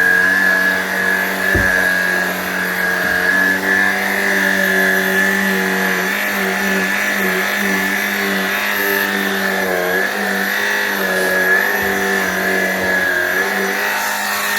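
Shark Rocket PowerFins cordless stick vacuum running on its carpet setting: a steady motor hum under a high whine, wavering slightly in pitch, with a low thump about one and a half seconds in.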